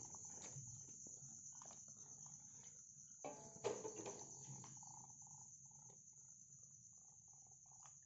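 Crickets chirping in a steady, high-pitched trill, with a few faint knocks and a brief faint voice-like sound about three and a half seconds in.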